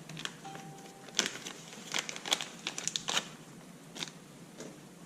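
Scattered clicks and light rattles of small parts being handled and fitted by hand into a billet shifter box.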